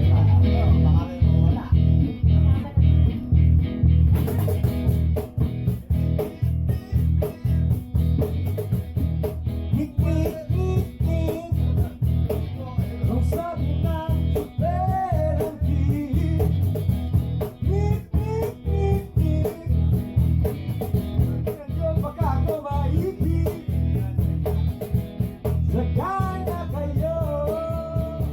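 Live band jam: strummed guitars over a loud bass line with a steady beat. Gliding melody lines come in from about halfway.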